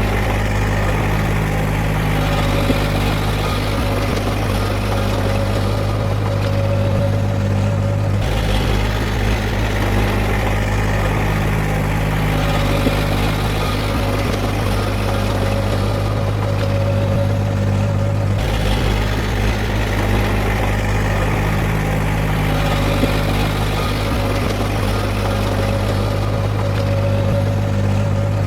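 Heavy diesel engine of earthmoving equipment running steadily with a deep, even hum. Its tone changes abruptly twice, about eight seconds in and again near eighteen seconds.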